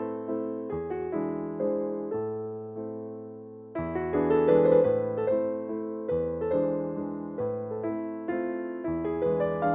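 Background music: a gentle piano melody over held chords, easing off to a fading chord about two seconds in before the notes resume.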